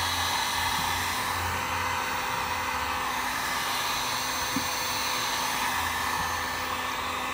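Electric heat gun blowing a steady stream of hot air, heating a new RC two-stroke engine's cylinder so the 3-in-1 oil soaks in during break-in.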